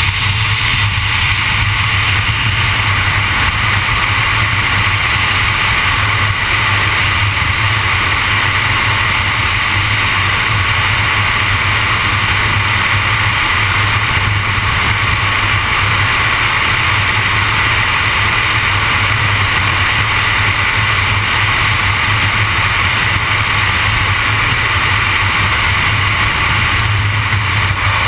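Steady road and wind noise of a vehicle cruising at highway speed, with a constant low drone underneath.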